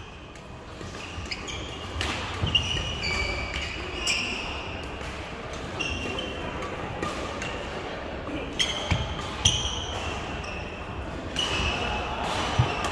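Badminton rally: racket strikes on the shuttlecock at irregular intervals, mixed with short high squeaks of shoes on the court floor.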